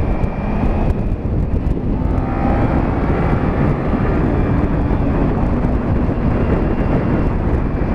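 Kawasaki Ninja 300 parallel-twin engine running under way, mixed with wind rush over a helmet microphone; the engine tone climbs slightly about two seconds in.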